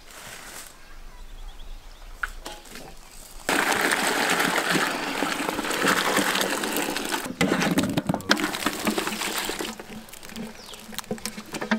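Boiled potato slices and their water poured from a metal bowl into a perforated aluminium colander: water splashing and draining through the holes, starting suddenly about three and a half seconds in.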